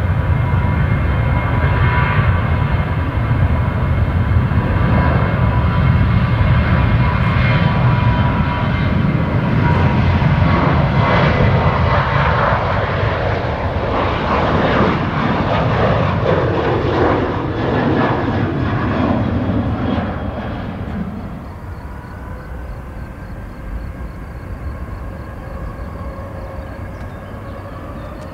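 Jet airliner engines running loud: a deep rumble under a steady whine. The sound builds through the middle and falls away sharply about twenty seconds in.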